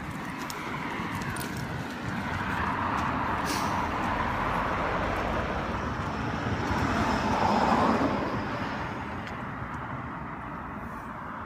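A car driving past on the street: its road noise grows louder over several seconds, is loudest about two-thirds of the way through, then fades away.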